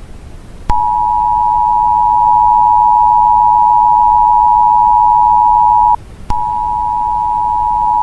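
Emergency Alert System two-tone attention signal: two steady electronic tones sounded together, loud, starting about a second in, breaking off briefly near six seconds and then resuming.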